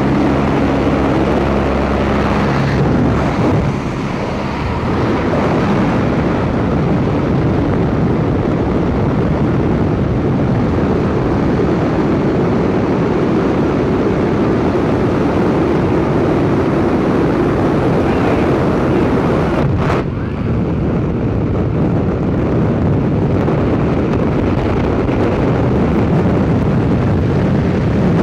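Loud, steady wind rush and aircraft engine noise at the open door of a skydiving jump plane, giving way about twenty seconds in to freefall wind blasting over the camera microphone.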